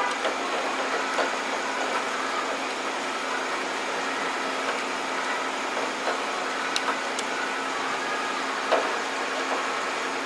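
Steady mechanical hum, like an engine or motor running, with a few faint clicks about two-thirds of the way through.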